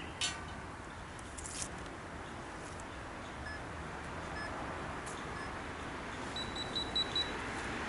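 A sharp click just after the start, a few faint short electronic beeps, then a quick run of high beeps near the end, over steady outdoor background noise.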